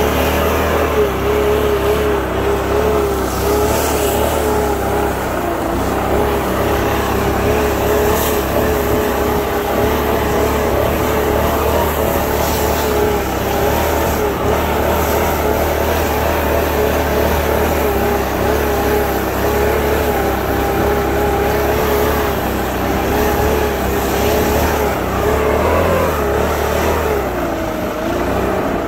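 An engine running steadily, with a slightly wavering pitch that glides down and back near the end.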